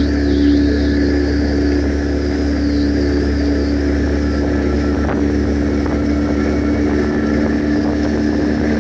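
Outboard motors running steadily at cruising speed, holding an even pitch, over the rush of water along the hulls.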